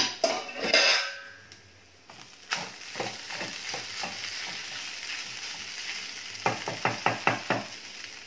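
A steel plate lid clanks and rings briefly in the first second. Then a wooden spatula stirs and scrapes tadka rice in a steel kadhai over a steady sizzle, with a quick run of scraping strokes near the end.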